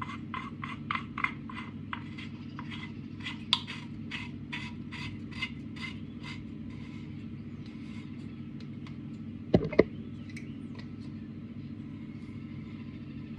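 Small sharp clicks and taps of metal and plastic parts as a new diverter valve cartridge and pin are worked into a boiler's manifold, coming about three a second at first, with two louder knocks about two-thirds of the way through. A steady low hum runs underneath.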